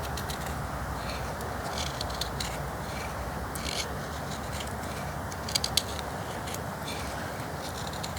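Knife blade shaving thin curls from a dry stick for tinder, in irregular short scraping strokes, with a few sharper clicks about five and a half seconds in.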